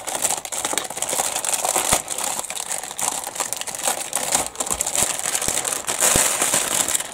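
Clear plastic bag packed with plastic model-kit sprues crinkling steadily as it is handled and the sprues are worked out of it, with a few sharp clicks.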